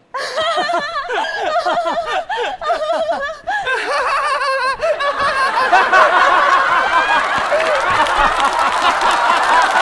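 Hearty laughter in quick repeated bursts, then a studio audience laughing together, swelling from about four seconds in and staying loud.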